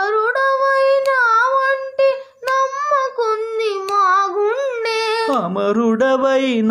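A boy singing long, high held notes, the pitch wavering and sliding between them, with a brief break for breath near the middle. About five seconds in, a man's lower singing voice takes over.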